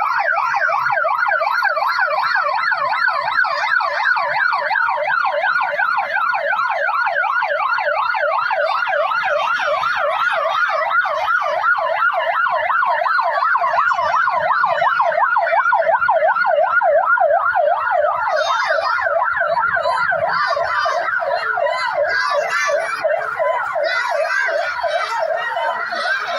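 Electronic emergency siren in a rapid yelp, its pitch sweeping quickly up and down without a break. It sounds continuously and loudly throughout.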